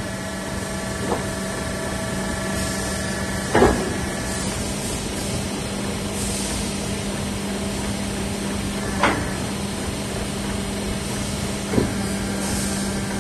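Hydraulic power unit of a four-sided rotary wood clamp carrier running with a steady hum, with brief hisses and four sharp metallic clunks as the clamp frame turns, the loudest about three and a half seconds in.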